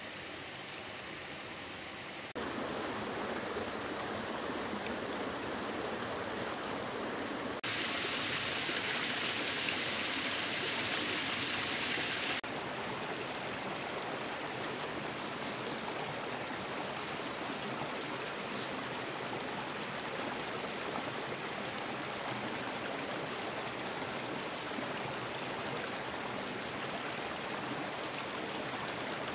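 Water running in a stream, a steady rushing sound that changes abruptly about two seconds in, turns louder and hissier from about eight to twelve seconds in, then settles back.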